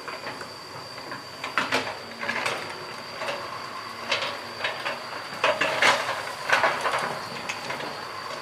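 Excavator at work: irregular metallic clanks and scrapes from the machine over a steady high whine, with the sharpest knocks clustered a little past halfway.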